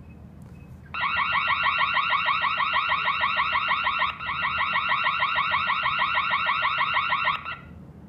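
Electronic alarm of a wireless home alarm system, set off by a tripped door sensor. It starts about a second in as a loud, fast, evenly repeating warble, breaks briefly about four seconds in, and cuts off sharply about seven and a half seconds in.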